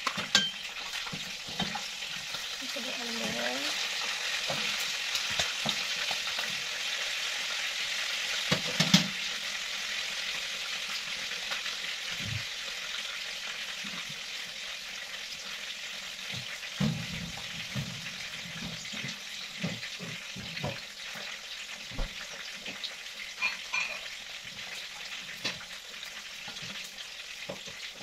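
Chicken deep-frying in a wok of hot oil, a steady sizzle throughout, with scattered short knocks and clicks, the loudest about nine seconds in.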